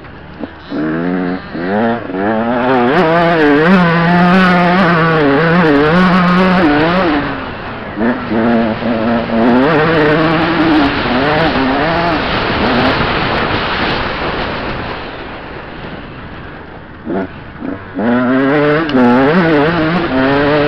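Motocross dirt bike engine revving hard, its pitch rising and falling with throttle and gear changes. It eases off past the middle, gives a couple of short throttle blips, then pulls hard again near the end.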